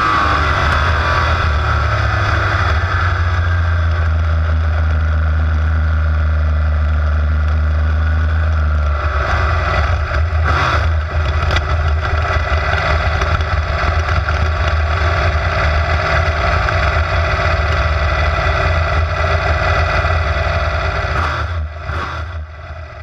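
Big-block Chevrolet V8 of a supermodified race car, heard from the cockpit. Its pitch falls as the throttle comes off, then it runs at a steady low speed. About nine seconds in it drops to a rougher, lower burble with a couple of knocks as the car slows, and the sound fades out near the end.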